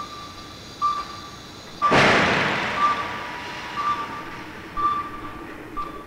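A short, high warning beep repeats about once a second. About two seconds in, a crash-test run gives a sudden loud crash that dies away over a second or so.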